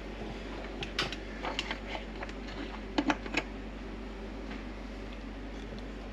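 Light clicks and taps, a cluster of them in the first three and a half seconds and then only a few, over a steady low hum.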